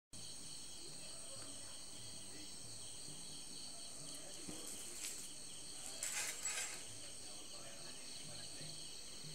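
Insects chirring steadily in a high, pulsing chorus, with a short burst of noise about six seconds in.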